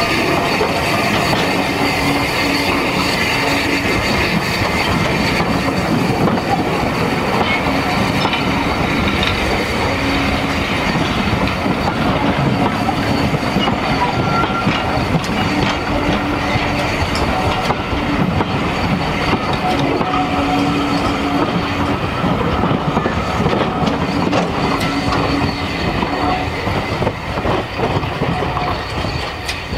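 Steam-hauled train of carriages rolling past close by, behind SR Schools class 4-4-0 No. 30925. Its wheels clatter on the rails, and a low steady tone comes and goes. The sound eases off near the end as the train draws away.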